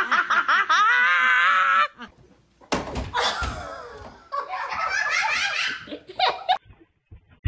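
A woman laughing hard, with a high, wavering laugh. After a short pause there is a sharp knock, then more laughing.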